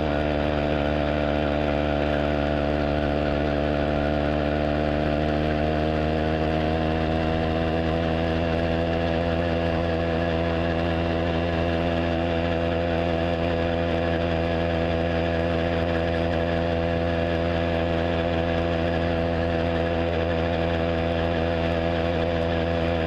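Riga moped's small two-stroke engine running steadily at full throttle while riding, its pitch rising slightly about six seconds in and then holding.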